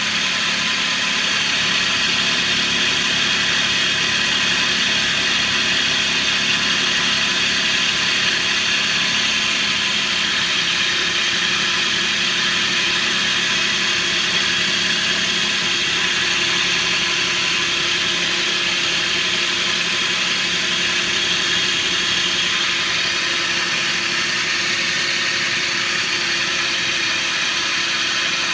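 Mitsubishi eK Wagon's three-cylinder engine idling steadily, with a constant high-pitched noise over the idle: an abnormal noise from the drive belt's auto-tensioner.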